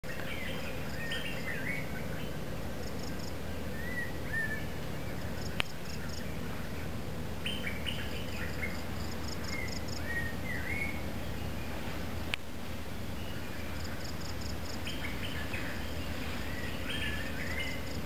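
Forest birds singing, repeating short phrases of sliding whistled notes every few seconds, with insects chirping in rows of short high pulses. Two sharp clicks sound, one about a third of the way in and another about two-thirds in, over a steady low background noise.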